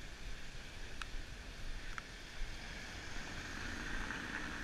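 City square ambience: wind rumbling on the microphone over a steady hiss of street traffic and car tyres on cobblestones, with two brief clicks about one and two seconds in.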